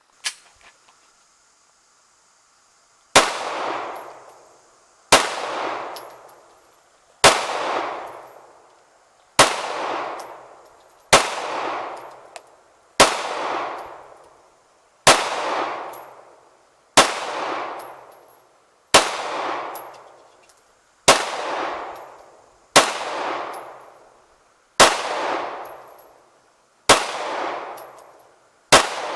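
Gunshots fired at a steady pace, about one every two seconds, each a sharp bang with a long ringing tail that dies away.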